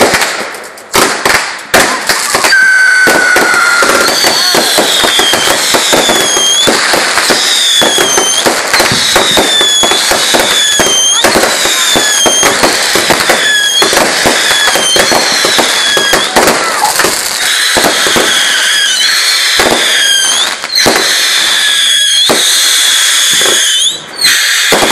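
Consumer firework cake firing shot after shot: a dense run of bangs and crackling, with a whistle that repeats about once a second through most of it. The firing thins out shortly before the end.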